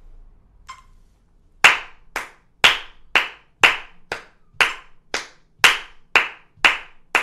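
Electronic metronome beeping at 60 BPM, then from about a second and a half in, steady hand claps of fingertips on palm, two evenly spaced claps per beat. That is about two claps a second, every other clap on the beep and the rest on the offbeat.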